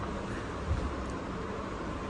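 Steady low background noise with no distinct source, and one soft knock a little under a second in.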